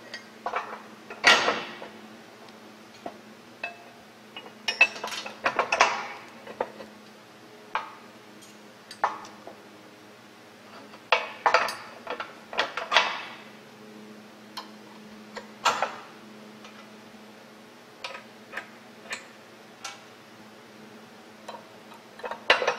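Metal clanks, knocks and rattles as a steel drill stem guide clamp is fitted around a drill stem on a drill rig mast and pinned in place. The knocks come irregularly in small clusters, with quieter gaps between.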